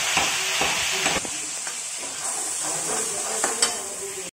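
Chopped tomatoes and green chillies sizzling in hot oil in a steel kadhai, a steady hiss that eases a little after about a second. A few clicks of a steel ladle stirring come near the end, and the sound cuts off suddenly.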